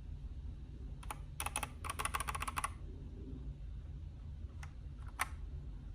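Keys on a Redragon K668 mechanical keyboard being pressed: a quick flurry of clicky keystrokes about a second in, then two single key presses near the end.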